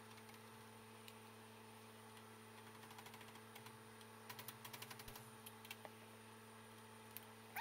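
Near silence: a faint steady hum, with a loose run of light clicks and ticks in the middle.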